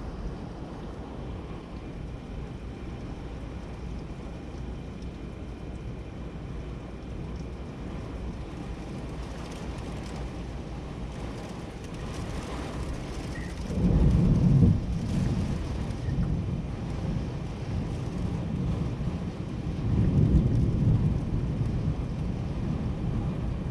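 Thunderstorm with steady wind and rain noise, and thunder rumbling twice: a loud low rumble about 14 seconds in, and a second one about 20 seconds in.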